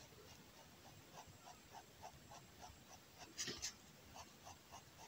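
Fineliner pen hatching on kraft paper: faint, quick scratchy strokes at about three a second, with two louder scratches about three and a half seconds in.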